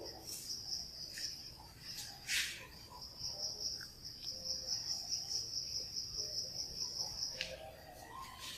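A steady high-pitched insect trill that breaks off briefly about two seconds in, then runs on and cuts off suddenly near the end. A few faint clicks and one short scratchy noise sound under it.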